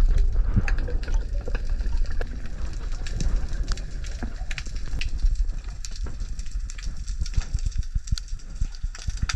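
Underwater ambience of a rocky reef: dense, irregular crackling clicks over a steady low rumble of moving water, heard through a camera underwater.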